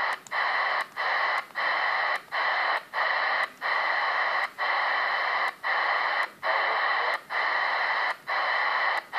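Targa 77-099 CB radio hissing with open-squelch static, cut by a short silence each time the channel-up button steps to the next channel, about ten times at roughly one a second.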